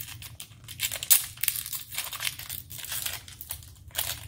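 Small plastic packet from an L.O.L. Surprise doll crinkling and crackling in the hands as it is twisted and pulled to tear it open. The crackles come in an irregular run, with a few sharper ones about one and two seconds in.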